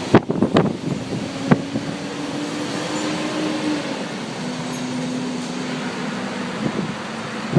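Storm wind buffeting the microphone over steady street traffic noise, with a low steady hum through the middle and a few sharp knocks in the first second and a half.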